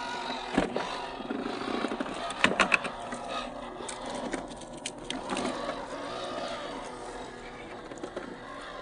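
Small RC crawler truck's electric motor and gears whirring as its tyres grind and knock over rock. A sharp knock comes about half a second in, a cluster of loud knocks about two and a half seconds in, and lighter clicks around the middle.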